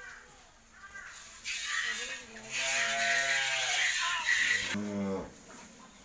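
A cow mooing once: a long, low call that opens with a breathy rush about a second and a half in and ends about five seconds in.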